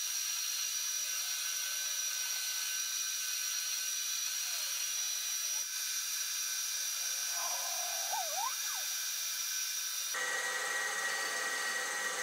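Metal lathe cutting a metal bar: a steady high-pitched whine over a cutting hiss. The tone changes abruptly about halfway through and again near the end.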